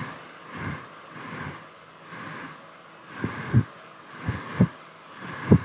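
Hair dryer running, a steady hissing whir that swells and fades slightly. Irregular low gusty thumps come over it about a second apart, loudest about three and a half seconds in and near the end.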